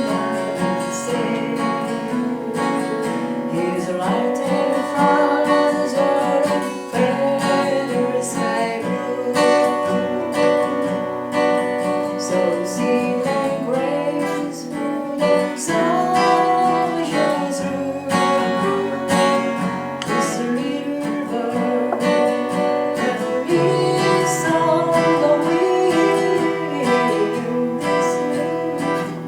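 Acoustic guitar played continuously, strummed and plucked chords accompanying a song.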